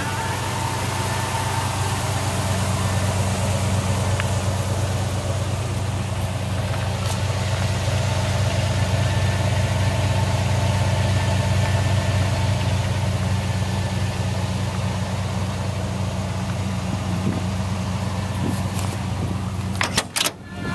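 Vintage pickup truck's engine idling steadily at the tailpipe, a low even rumble. A few sharp knocks come near the end.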